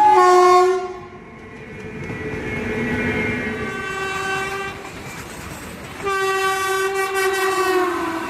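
Indian Railways locomotive horn sounding three times: a loud blast at the start, a fainter, longer sounding in the middle, and another long blast from about six seconds in that drops in pitch near the end.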